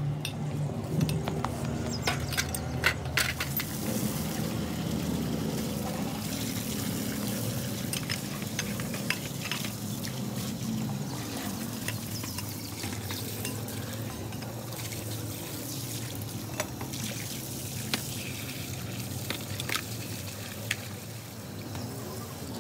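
Running water from a hose splashing over metal hydraulic jack parts held under the stream as they are rinsed, with occasional sharp knocks of the parts.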